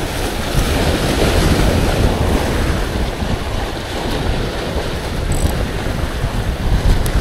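Sea surf washing in over the concrete tetrapods of a breakwater, with wind buffeting the microphone.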